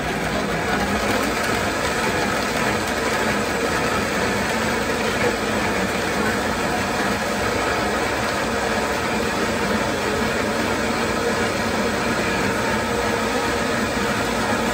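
Vitamix blender motor running steadily, puréeing guajillo chiles, tomato, onion and spices with water into a red chile sauce.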